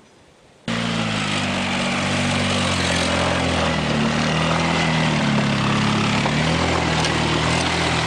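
Polaris ATV engine running as it is ridden, with its pitch rising and falling slightly. It comes in suddenly about a second in, after a short stretch of quiet.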